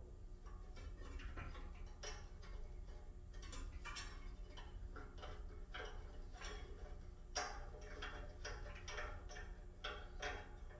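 Hand Phillips screwdriver tightening small screws into a metal mailbox mounting bracket and scroll: a run of irregular light clicks and ticks of metal on metal, with a few sharper ones near the end.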